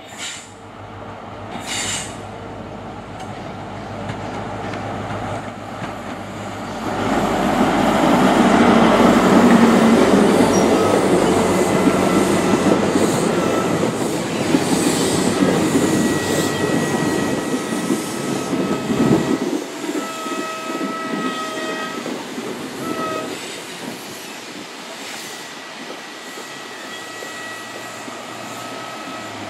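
High Speed Train (InterCity 125) running into the station. The leading Class 43 diesel power car passes loudly, its engine and wheels swelling and then fading. As the Mark 3 coaches roll by, a steady high squealing sets in at several pitches.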